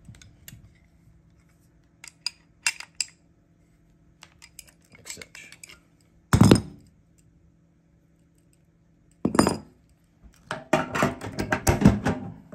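Steel adjustable wrenches clinking against brass propane fittings and knocking on a wooden workbench: scattered sharp clicks, two louder knocks about six and nine seconds in, and a quick run of clinks near the end.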